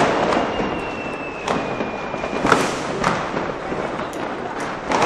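New Year's Eve fireworks and firecrackers going off, sharp bangs scattered about once a second over a constant background crackle, with a thin steady whistle held for about two seconds near the start.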